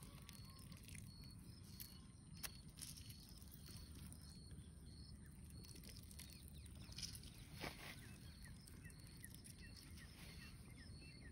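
Near silence: faint outdoor ambience with a faint high chirp repeating at a steady pace, and a few soft ticks.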